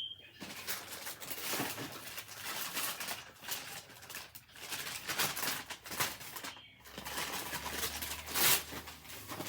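Wrapping paper rustling and tearing in a string of irregular strokes as a gift is unwrapped.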